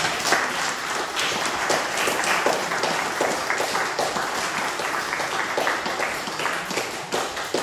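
Audience applauding: a dense patter of many hands clapping, easing off a little near the end.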